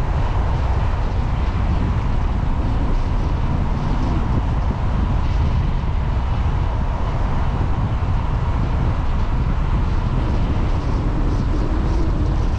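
Car driving slowly on a paved road: steady low rumble of engine and tyres, with a faint steady whine above it.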